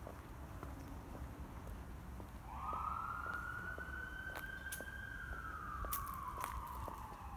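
Emergency vehicle siren wailing. It comes in about two and a half seconds in with a quick rise, holds high, then slides slowly down near the end.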